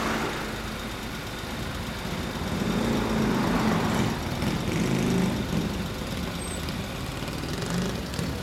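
Yamaha DragStar 400's air-cooled V-twin running through an aftermarket 'machine-gun' muffler while moving at low speed in traffic. It makes a low, uneven rumble that swells for a few seconds in the middle and then eases off.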